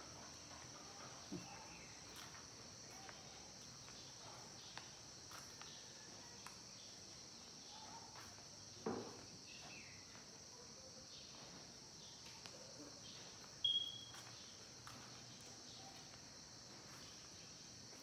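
Faint, steady high-pitched insect chorus, with a few soft knocks, a thump about halfway through, and one short high chirp about three-quarters of the way in.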